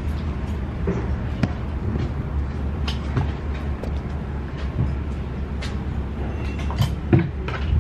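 Steady low rumble of restaurant background noise, with scattered light clicks and knocks from the table.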